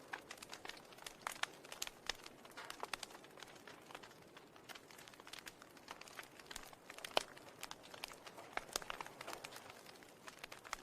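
Irregular soft crackling: scattered short clicks, several a second, over a faint hiss, with one sharper click about seven seconds in.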